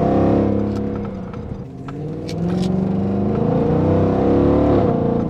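Mercedes-AMG M156 6.2-litre V8 in an E63 AMG with long-tube headers, pulling under throttle: the engine note falls away after the first second, then climbs again about two seconds in and holds loud until it drops off at the end.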